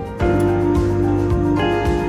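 Background music: soft held notes over a steady bass line.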